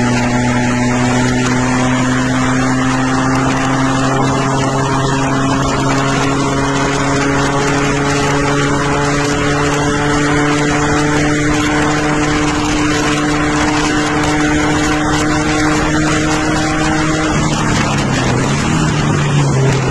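Caterham replica sports car's engine running hard at speed, heard from the cockpit, its pitch climbing slowly and steadily over a long stretch. Near the end the note breaks, dips and climbs again, over constant wind and road noise.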